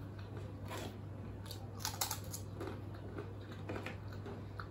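Faint chewing and crunching of crispy fried fafda, with a few short crackles scattered through.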